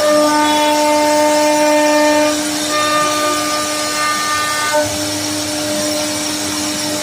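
CNC wood router spindle running with a steady high whine. Sharper higher overtones come and go in two stretches of about two seconds each.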